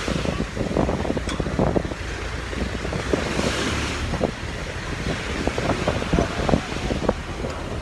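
Wind buffeting the microphone at the seashore, with waves washing in and scattered light knocks.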